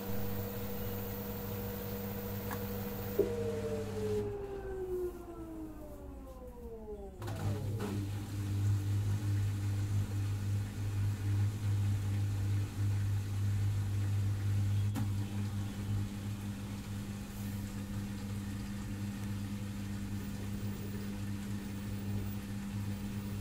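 LG front-loading washing machine coming out of an 800 rpm spin: the steady motor whine gives way, after a click about three seconds in, to a steep falling whine as the drum brakes quickly. From about seven seconds on, a steady low motor hum follows as the drum turns slowly in the anti-crease phase.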